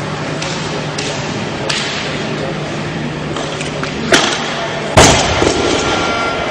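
Loaded barbell with bumper plates dropped onto the weightlifting platform: a sharp clank, then about a second later a heavy thud, the loudest sound, with a short metallic ringing after it, over a steady hall murmur.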